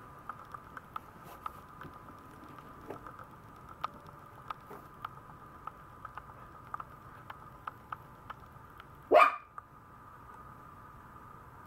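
A Maltese puppy gives one short, sharp yip about nine seconds in, over a faint steady hum and scattered small clicks.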